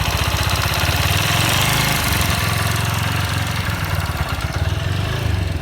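TVS Apache RTR 160 4V motorcycle's single-cylinder engine running steadily with a rapid even beat, the noise its owner reports as a problem.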